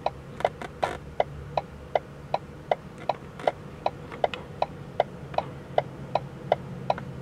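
Ratchet-like clicking sound effect: evenly spaced sharp clicks, about two and a half a second, over a faint steady hum.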